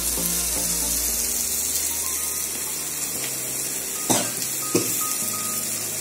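Drumstick pieces and masala frying in oil in a kadai, a steady sizzle. Two short knocks about four and five seconds in.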